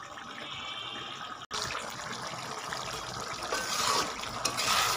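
Thick potato, pointed gourd and prawn curry bubbling in a kadai as the last of its water cooks off, breaking off for an instant about a second and a half in. A spatula stirring through it near the end.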